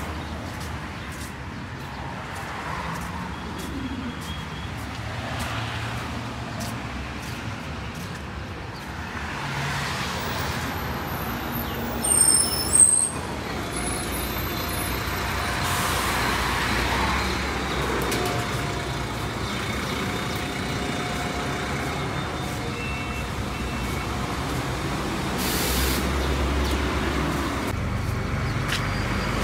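A city bus at the stop with its engine running amid passing road traffic, and two short, loud, high-pitched squeals about twelve seconds in.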